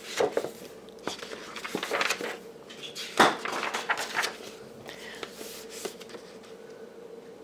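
Paperback picture book being opened and its pages flipped by hand: irregular rustles and flaps of paper, with a sharp snap about three seconds in.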